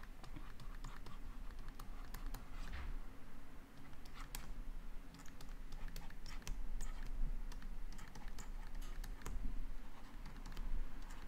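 A pen stylus tapping and scratching on a tablet screen as handwriting is written: an irregular run of light clicks over a low steady hum.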